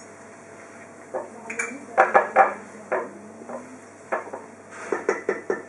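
Kitchen clatter: clinks of dishes and metal utensils and sharp knocks, some briefly ringing, loudest about two seconds in and again near the end, with a chef's knife cutting through duck breast fat onto a wooden cutting board.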